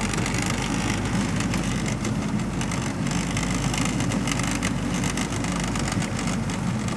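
Boat engine running steadily at idle, with a constant hiss laid over it.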